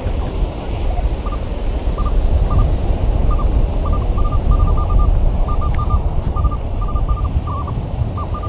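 Minelab Manticore metal detector sounding short, high target beeps of one pitch, singly and in quick runs, as it passes over a target. Under them runs a steady low rush of surf and wind on the microphone.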